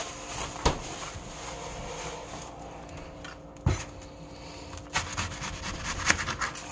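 Serrated steak knife sawing through a whole onion on a plate, with a few sharp knocks as the cut goes on.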